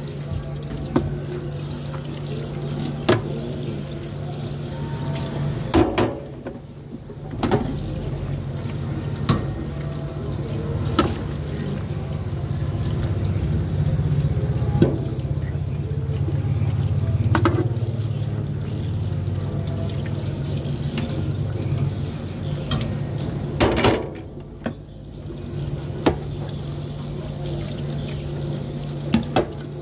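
Tap water running and splashing onto white ceramic plates in a stainless steel sink as they are scrubbed, with sharp clinks of crockery every few seconds. The splashing drops away briefly twice.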